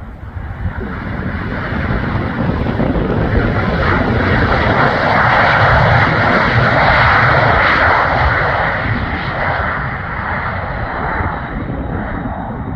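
Airplane engines passing close by on a landing, growing louder to a peak about halfway through and then fading.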